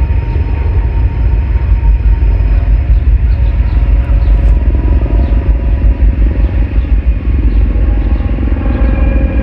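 CN freight train passing close by: a loud, steady, heavy rumble.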